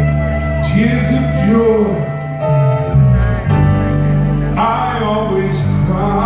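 Music: a song with a singing voice gliding over held instrumental chords.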